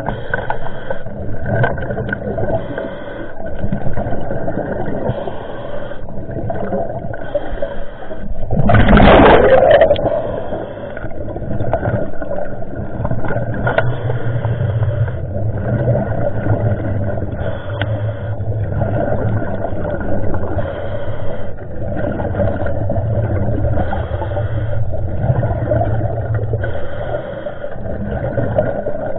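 Motorboat engine running with a steady drone. A loud rushing burst lasting about a second comes about nine seconds in, and a low hum joins from the middle on.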